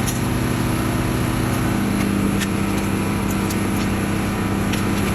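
A small engine running steadily, its tone stepping higher a little under two seconds in, with a few faint clicks.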